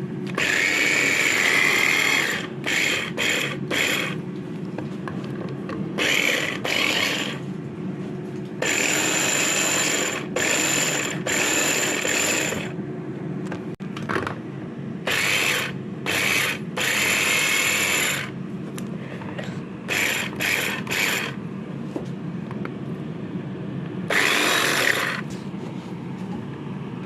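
Thomas electric picadora (kitchen chopper) running: a steady motor hum, with irregular bursts of louder, harsher grinding noise lasting from a fraction of a second to a few seconds.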